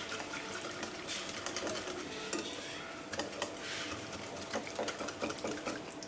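A whisk stirring thick hung curd and condensed milk in a bowl, with many small clicks and scrapes against the bowl.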